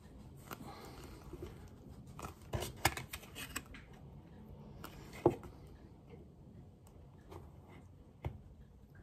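A plastic card and rubber carburettor diaphragm being worked onto the carburettor piston by hand: soft rubbing with light clicks, a quick run of clicks about three seconds in, one sharp click a little after five seconds (the loudest), and another click near the end.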